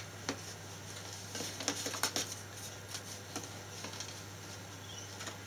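Faint scattered taps and rustles of hands pressing card and sticky tape inside a wrapped cardboard box, over a low steady hum.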